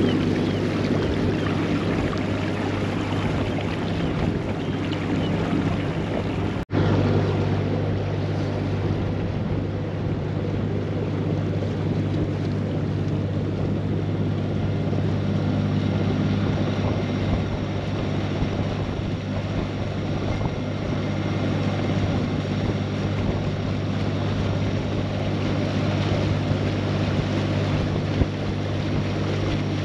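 A narrowboat's 30-horsepower inboard engine running steadily under way, pushing against the tide, with wind on the microphone. The sound breaks off for an instant about seven seconds in.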